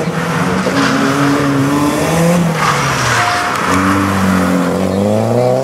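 Toyota Celica 4WD rally car's turbocharged four-cylinder engine revving up and down as the car drives past close by, the revs climbing steadily over the last two seconds. About two and a half seconds in there is a short hiss of tyres sliding.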